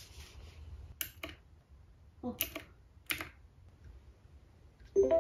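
About five sharp key clicks in irregular pairs and singles over a couple of seconds, as keys are pressed to switch on and pair a Bluetooth speaker. A short electronic tone sounds near the end.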